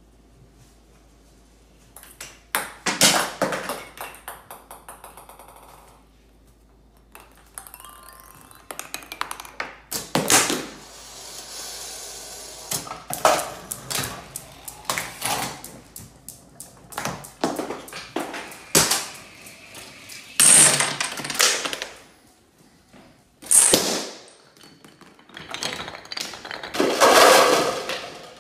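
Homemade chain-reaction (Rube Goldberg) machine running: a string of clicks, taps and knocks from small parts and balls hitting track and objects, including a quick run of taps, with several louder clattering crashes, the last and longest near the end.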